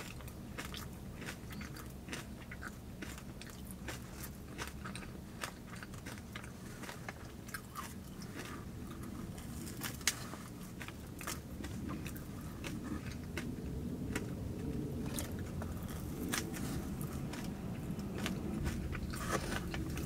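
A person biting into and chewing a vanilla-frosted donut topped with crystal-like sugar sprinkles, many small crunches and clicks close to the microphone.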